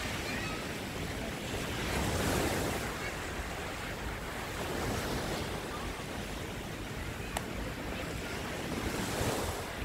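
Small waves breaking and washing up a sandy beach, the surf swelling louder every few seconds, with wind rumbling on the microphone. A brief click sounds about seven seconds in.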